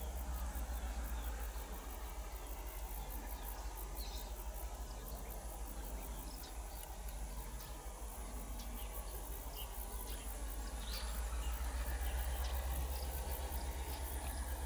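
Low steady rumble of a distant diesel locomotive moving slowly while shunting ballast wagons, under a constant high buzz of insects, with a few short chirps. The rumble swells a little near the end.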